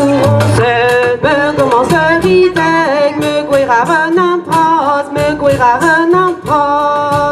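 Live band playing a song: women's voices singing over a plucked upright double bass and drums.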